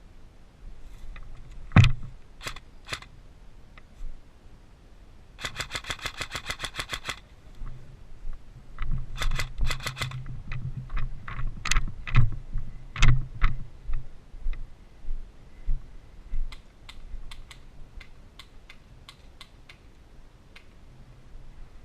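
Airsoft guns firing: a few single shots, then a rapid full-auto burst of about a second and a half starting about five seconds in, followed by a run of louder single shots and short strings. Fainter shots are scattered near the end.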